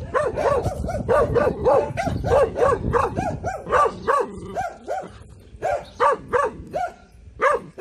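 Six-month-old Taiwan dog (Formosan mountain dog) giving alert barks at a stranger: a fast string of short barks, about three a second, with a brief pause about five seconds in.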